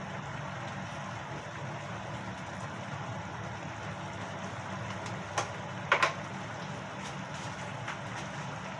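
Steady low hum and hiss of a lit gas stove burner under a simmering pan, with a sharp click about five seconds in and a louder double click just after, as a spoon is tapped while adding salt.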